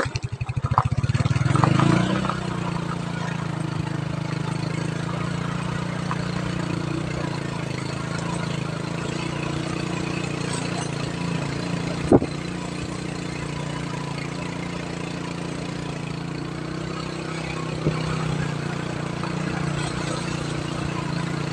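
Motorcycle engine being ridden along a rough dirt track: it revs up over the first couple of seconds, then runs steadily at an even speed. A single sharp knock comes about halfway through.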